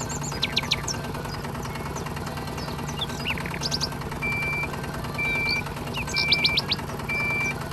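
Small motor running with a steady hum, while birds chirp over it. In the second half a short high beep repeats about once a second.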